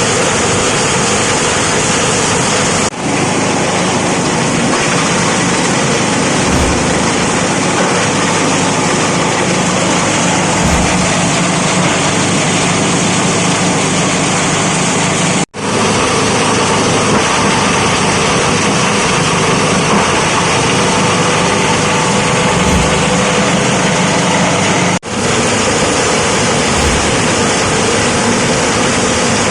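Plastic bottle shredder machine running with a loud, steady mechanical noise. It drops out sharply three times.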